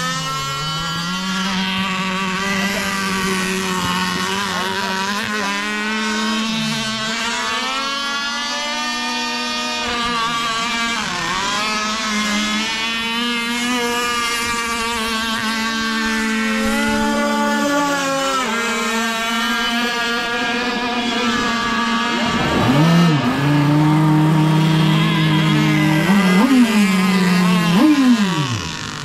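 Gasoline RC powerboat with a two-stroke chainsaw-type engine running at speed, its high engine note rising and falling as the throttle and distance change. Near the end it grows louder, with quick revs, then drops sharply in pitch as the boat passes close.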